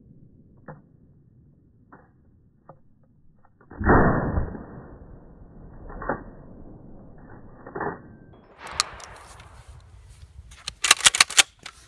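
Benelli Nova pump-action shotgun firing one loud blast about four seconds in, followed by a few fainter knocks. Near the end comes a quick run of sharp metallic clicks as the gun is handled.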